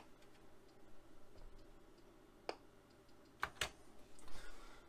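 Apple Lisa 2/5 computer starting up: a few sharp mechanical clicks, one about two and a half seconds in and two close together about a second later, then a short rushing noise near the end.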